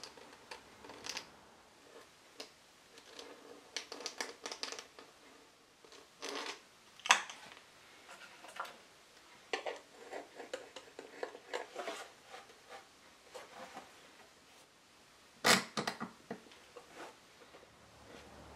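Hand tools handled against a wooden box: scattered light scrapes and taps, with two sharp clicks, one about seven seconds in and a louder one about fifteen seconds in.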